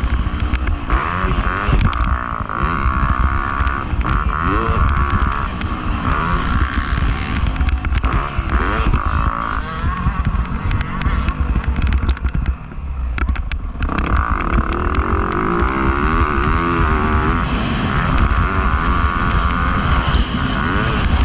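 Dirt bike engine revving up and down repeatedly as it is ridden on a motocross track, over a heavy low rumble. The revs and level drop off briefly about twelve seconds in, then climb again.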